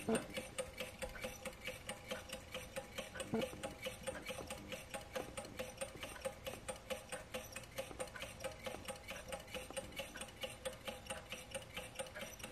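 Small low-temperature-difference Stirling engine running, its crank, connecting rods and spinning flywheel making a quick, even mechanical ticking, with one louder click a little over three seconds in.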